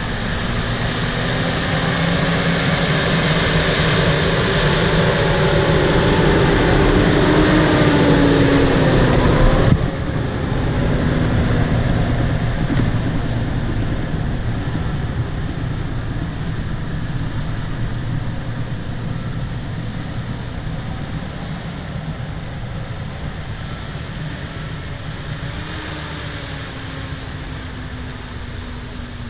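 A bulldozer's diesel engine working as it strips topsoil. It grows louder with its pitch rising over the first ten seconds, then drops suddenly and eases off gradually.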